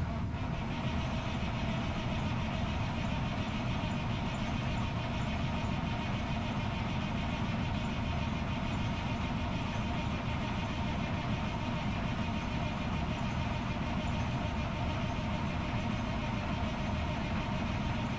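Freightliner Columbia heavy truck's diesel engine idling steadily.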